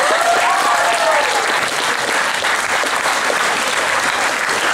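Audience applauding loudly, with a few rising-and-falling cheering whoops in the first second or so.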